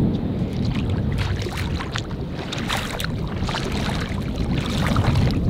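Wind buffeting the microphone with a steady low rumble, while water splashes and sloshes irregularly as feet wade through shallow water.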